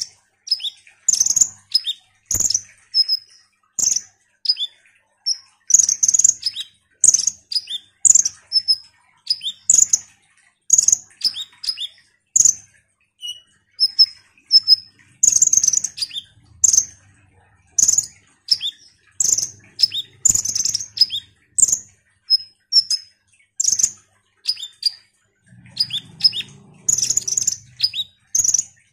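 Caged male Van Hasselt's sunbird (kolibri ninja) calling energetically: a steady run of short, sharp, high chirps, one or two a second, some in quick clusters. There is faint rustling near the end.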